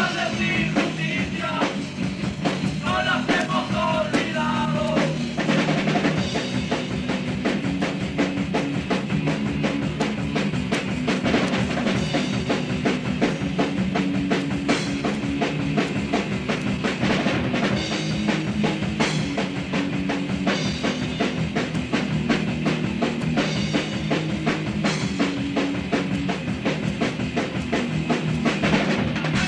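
A punk rock song played by a full band, with the drum kit prominent and a steady, driving sound throughout.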